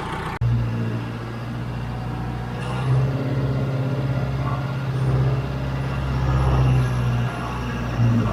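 John Deere 410 backhoe's diesel engine running while working dirt, its level swelling and easing several times as it takes load. The sound drops out for an instant about half a second in.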